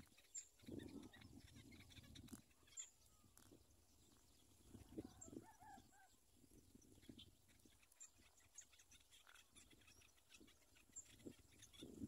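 Faint rustling and shuffling of zebra dove chicks and their parent in a twig nest during feeding, in short spells, with tiny high chirps in the background.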